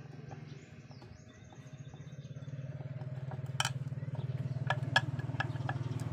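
An engine running steadily, louder from about two seconds in. Over it come sharp metallic clicks: a screwdriver working the screws of a new primary coil on a motorcycle magneto stator, once near the middle and then in a quick run near the end.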